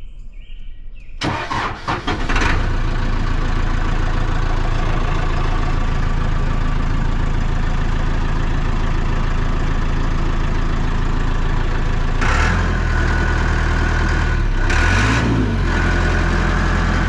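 Caterpillar 420D backhoe's four-cylinder diesel engine cranking about a second in and catching, then running steadily. The engine speed briefly rises and falls a couple of times near the end.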